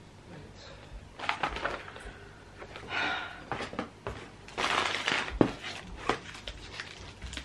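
Packaging rustling and crinkling in irregular spells as hot chocolate mix sachets are handled, with a few sharp clicks; busiest about halfway through.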